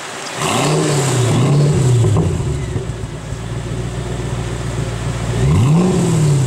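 Supercar engine revving: its pitch climbs and drops about half a second in, rises again a second later, holds steady, then climbs and drops once more near the end.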